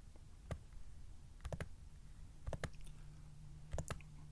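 Computer mouse clicking a few times, mostly in quick pairs, as indicators are picked and added on screen. A faint low hum comes in about halfway.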